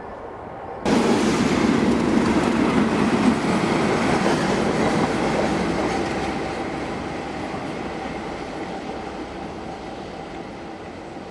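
British Rail Class 37 diesel-electric locomotive running past with its engine and its wheels on the rails. The sound comes in abruptly about a second in, is loudest for the next few seconds, then fades steadily as the locomotive draws away.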